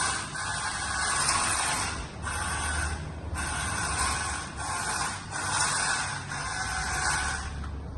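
Small electric motor and plastic gears of a 1970s Yamada 1/20 wired remote-control Lamborghini Countach model whirring in short spurts, stopping and starting about once a second as the steering is worked from the handset.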